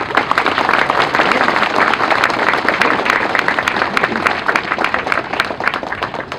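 Audience applauding: many people clapping at once, starting abruptly and tapering off near the end.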